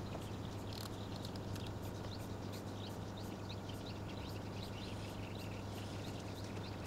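Quiet room tone: a steady low hum under faint, quick bird chirps, several a second.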